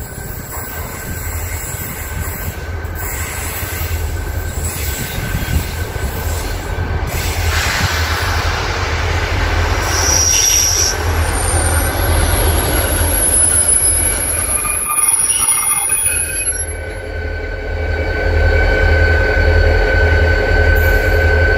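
Two coupled diesel locomotives running light and passing close by: a steady low engine rumble that grows louder as they approach, dips briefly, then swells again as the second locomotive goes past, with high squealing tones from the wheels on the rails.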